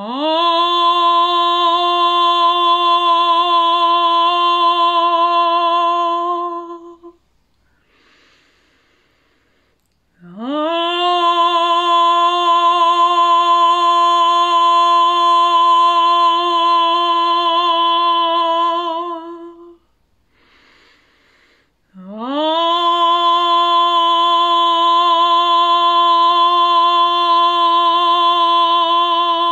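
A woman's voice toning in sound meditation: three long held notes on an open vowel, each sliding quickly up into the same steady pitch and held for about seven to nine seconds, with short pauses for breath between them.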